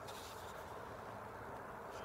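Quiet, steady background noise with no distinct event.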